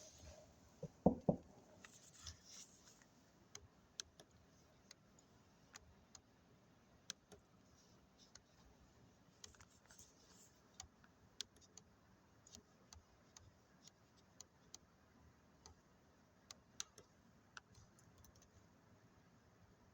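Faint, irregular clicks and light taps in a quiet room, with a couple of louder knocks about a second in.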